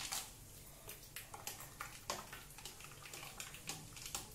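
Metal spoon stirring ice cubes and soda in a glass tumbler: faint, irregular clinks of the spoon against ice and glass, with the stirred liquid swirling.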